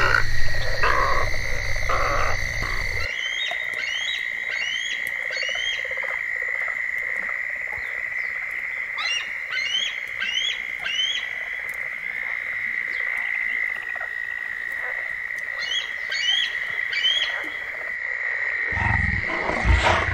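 A bald eagle calling: short series of about four high, rising chirped notes, repeated several times over a steady high-pitched background chorus. It is preceded for the first few seconds by low croaking heron calls. A deep rumbling sound starts near the end.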